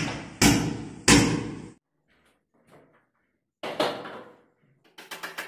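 Loud sharp blows on wood, two of them about two-thirds of a second apart, each ringing out in the room. A third blow comes near the four-second mark, then a quick even run of taps begins near the end.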